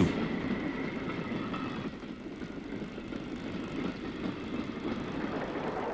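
A train running, a steady rumble.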